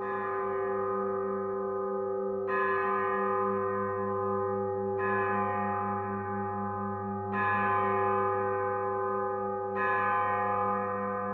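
A bronze bell struck five times, about every two and a half seconds. Each strike rings on under the next, with a slow wavering in its low hum.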